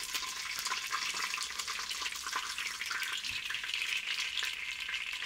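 Hot olive oil and chicken drippings sizzling steadily in a stainless steel pot, with small crackling pops. A wooden spoon scrapes the bottom of the pot at the start.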